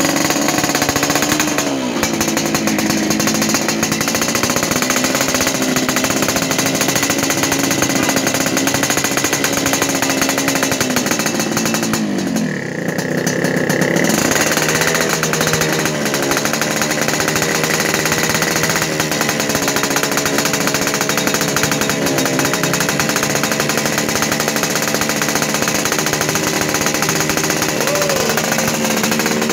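Yamaha RX-King's two-stroke single-cylinder engine running on a racing exhaust with a rough, rattling note, its revs wavering up and down as the carburettor is adjusted. About twelve seconds in the revs sag almost to a stall and then pick back up.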